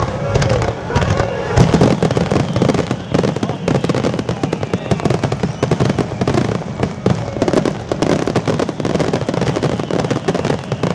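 Fireworks barrage: many aerial shells bursting in rapid succession, a continuous run of bangs and crackle with no pause.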